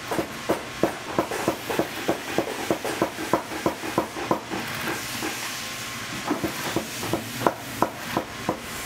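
Quick, regular tapping, about three to four taps a second, giving way about halfway through to a couple of seconds of steady hiss before the tapping resumes.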